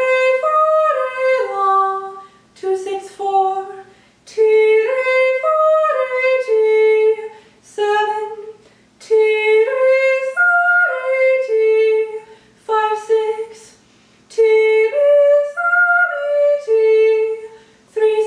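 A young woman singing unaccompanied solfège arpeggios for a chord progression: about four five-note figures that climb through the chord and step back down, each followed by a shorter sung phrase and a brief pause.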